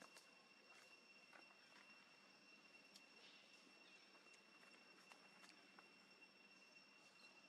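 Near silence: faint outdoor ambience with a steady high-pitched tone and a few scattered soft clicks.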